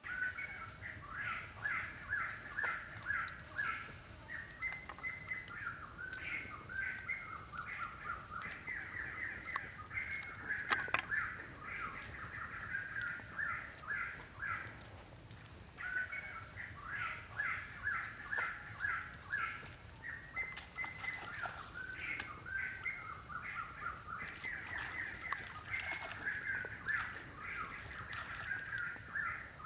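Forest ambience: a steady high-pitched insect drone, with a bird calling over it in rapid runs of repeated notes that break off briefly around the middle and start again. A single sharp click stands out about a third of the way in.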